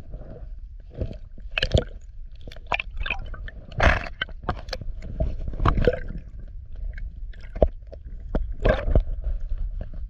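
Water sloshing, gurgling and splashing irregularly in a shallow rock pool as a caught sea bass is released, with many short sharp splashes over a steady low rumble.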